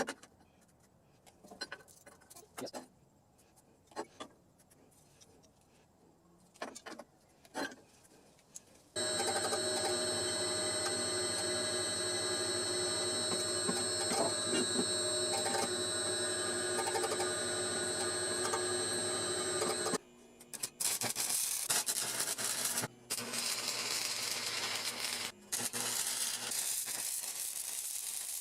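Scattered knocks and taps. Then a steady machine whine for about eleven seconds, then the crackling hiss of a stick-welding arc that cuts out briefly a few times.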